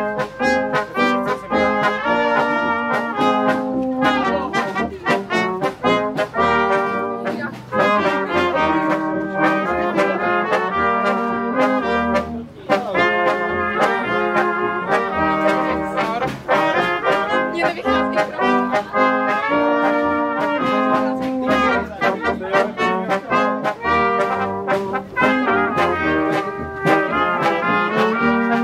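Brass band of trumpets and other brass horns playing a tune with a steady beat.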